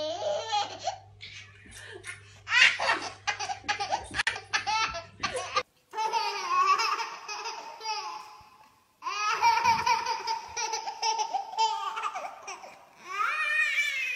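Baby belly laughter in short repeated bursts. After a brief break about six seconds in, a baby laughs again in two long stretches.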